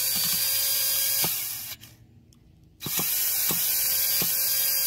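Electric starter spinning a Traxxas T-Maxx 3.3's nitro engine over without it firing: a steady whine with regular knocks. It stops for about a second, then starts cranking again.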